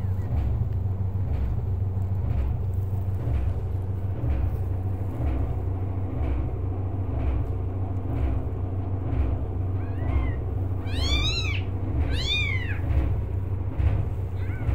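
Newborn kittens mewing: about ten seconds in, a quick run of three thin, high mews, each rising and falling in pitch. A steady low rumble runs underneath.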